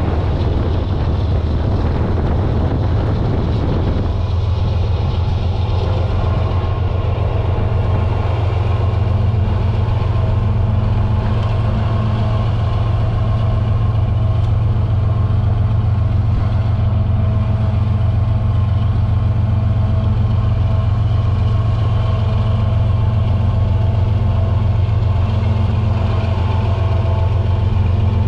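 Union Pacific ES44AC diesel locomotives running under power, heard from a car pacing them: a loud, steady low engine drone with a faint steady whine above it. A rougher rumble over the drone drops away about four seconds in.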